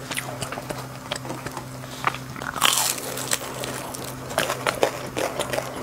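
Close-up biting and chewing of a crispy battered fried piece of food, with short crackles and mouth clicks and one loud crunch a little under three seconds in.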